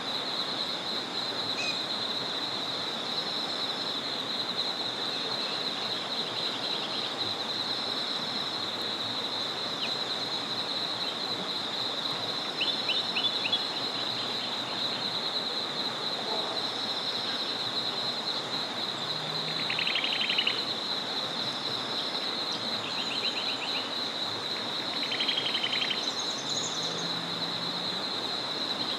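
Small forest river flowing steadily under a continuous high-pitched trilling chorus, with short, rapid rattling calls breaking in several times, loudest about a third of the way in and twice in the second half.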